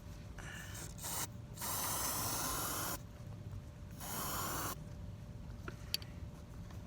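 Aerosol can of spray adhesive hissing in bursts: a brief, weaker spray, a longer one of about a second and a half, then a shorter one.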